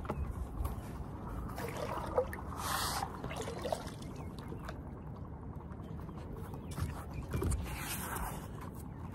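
Scuffs, rustles and light knocks of a barefoot person kneeling and shifting on wooden dock boards close to the microphone, over a low steady rumble, with louder rustling about two to three seconds in and again near the end.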